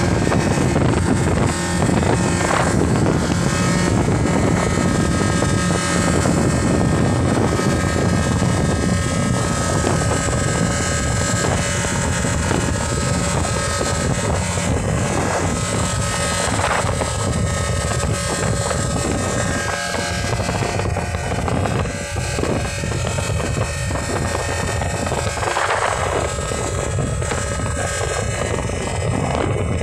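1800cc jet ski engine running steadily under way, with water rushing past the hull.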